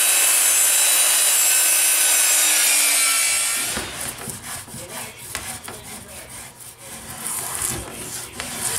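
Electric hand planer running on a pine board, a steady whine that drops in pitch and dies away about three and a half seconds in. Then a small hand plane shaves along the board's edge in short, uneven scraping strokes.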